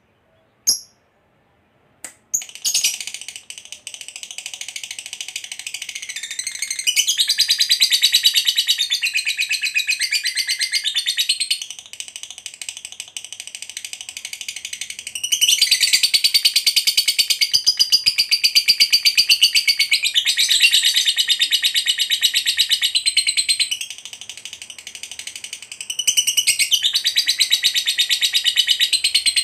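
A lovebird's long 'ngekek': rapid, high-pitched chattering trills held in long, almost unbroken bouts that start a couple of seconds in after a short chirp, swelling and easing in loudness. This is the prized long 'ngekek panjang' of a fighter lovebird in full song.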